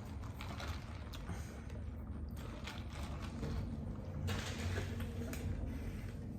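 People eating fast-food burgers and fries: chewing and rustling in uneven patches over a steady low hum.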